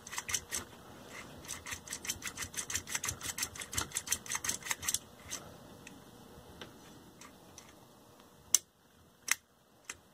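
The seized volume control of a 1950s Bulova tube radio being twisted back and forth by hand as DeoxIT contact cleaner frees its sticky grease. It clicks rapidly for about five seconds, slows to a few faint ticks, then gives two sharper clicks near the end.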